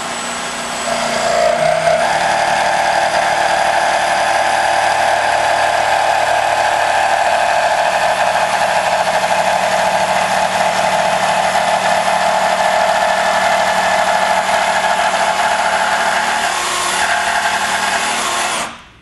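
Bosch cordless jigsaw cutting through plywood. It starts softly on a gently pressed trigger, gets louder about two seconds in and runs steadily through the cut, then stops just before the end.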